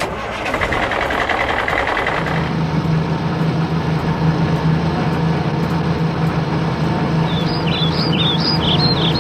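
Heavy vehicle engine running steadily with a low hum, and birds chirping over it in the last couple of seconds.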